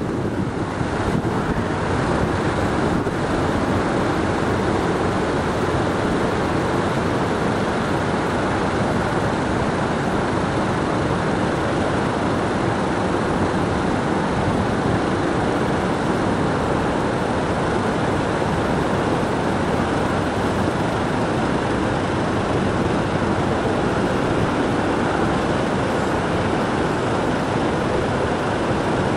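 Airliner jet engines running at taxi power, a steady even rumble.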